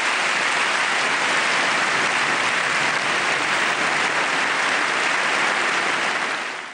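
Large audience applauding steadily, a dense clatter of many hands that fades away near the end.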